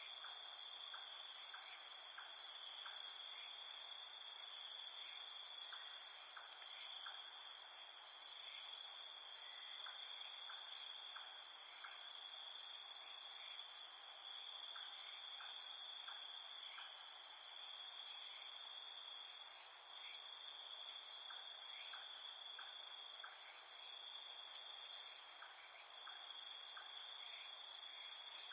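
Steady chorus of crickets and other insects, a continuous high-pitched trilling, with short clicking chirps in small groups of three or four every few seconds.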